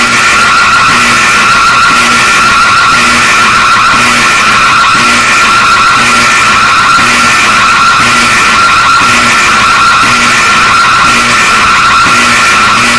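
Loud emergency alert system alarm playing: a harsh, heavily distorted steady screech with a short low beep repeating about every three-quarters of a second.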